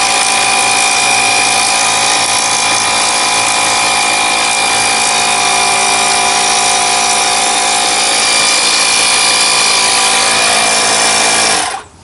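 Milwaukee M12 cordless tire inflator running in blower mode: a loud, steady motor whine over a rush of air. It cuts off suddenly near the end.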